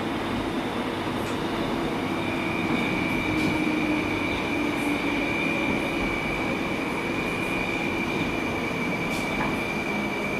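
Metrowagonmash 81-760/761 'Oka' metro train heard from inside the car as it runs into a station, a steady rumble of wheels and running gear. A steady high whine joins it about two seconds in.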